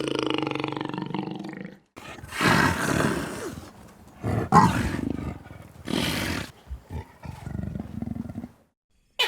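A large animal's loud calls in a row of short cut-together clips: one long held call, then after a brief cut a series of rough roars.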